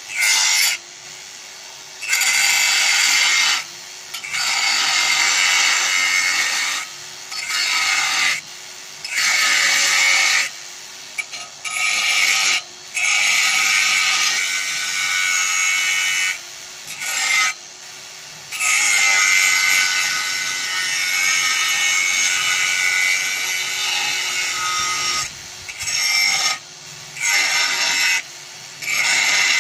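Bosch GWS 8-100 CE angle grinder cutting into a clamped metal strip in repeated passes: loud grinding stretches of one to several seconds, the longest about six seconds, with the motor's steady whir between them as the disc is lifted off.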